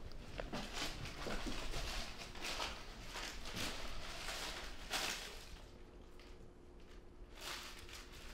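Soft, irregular rustling and handling noises, like clothing brushing and light movement, several a second. It eases off after about five seconds.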